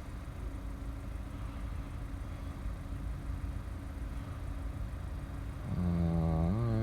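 A Toyota Yaris iA's four-cylinder engine idling steadily. Near the end a man hums briefly, his pitch rising.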